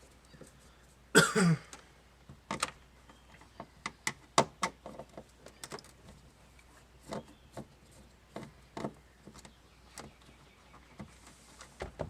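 Scattered small clicks and knocks of a screwdriver working Phillips screws out of a plastic dashboard vent cover and the parts being handled, with one louder, brief creak about a second in.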